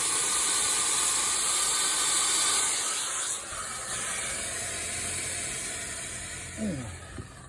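Pressurised nitrogen hissing loudly as it escapes from a refrigerant leak on a Trane compressor, which the technician places at the roto-lock joint. The hiss drops about three seconds in and keeps fading as the pressure bleeds down.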